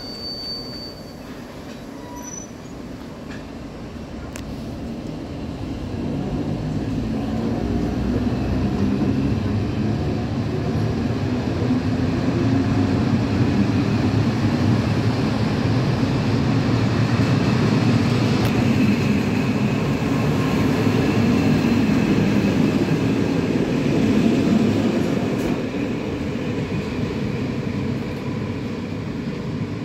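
Old Dutch 'Hondekop' (NS Mat '54) electric multiple unit pulling out and rolling past: a low rumble and hum from its motors and wheels that grows over the first several seconds as the carriages pass, stays loud, then fades near the end as the train draws away. A brief high tone sounds right at the start.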